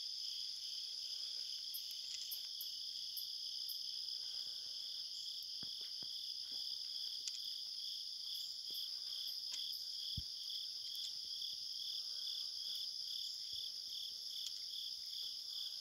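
Insect chorus, chiefly crickets: a steady high trill with a second, evenly pulsing chirp just below it. A few faint clicks sound through it.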